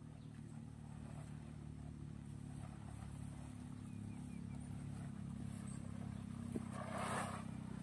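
Engine of a soil-sampling drill rig running steadily at a low idle, with a brief swell of rushing noise near the end.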